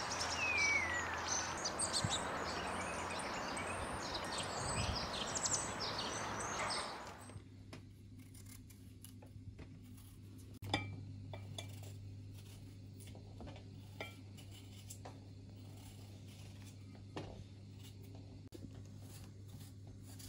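Birds chirping and calling over a steady outdoor hiss for about seven seconds. Then it turns quieter: a kitchen knife trimming button mushrooms over a glass bowl, making small scattered clicks and scrapes, with one sharper click about eleven seconds in.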